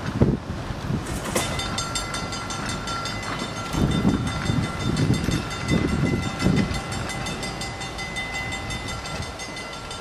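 Vintage Boston Orange Line elevated Type 9 rapid-transit car moving away along the track, with a steady high whine. A run of low thumps comes in the middle as its wheels cross the rail joints.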